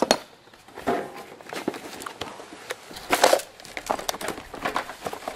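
Rustling and crinkling of a cardboard box and the plastic wrap inside it as a hand rummages through the packed parts. Scattered light knocks run through it, with one louder crinkle about three seconds in.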